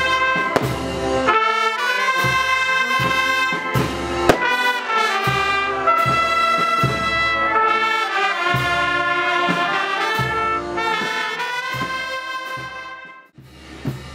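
Festa brass band playing a lively street march, trumpets and trombones carrying the tune over regular bass drum beats. The music drops away briefly about a second before the end, then comes back in.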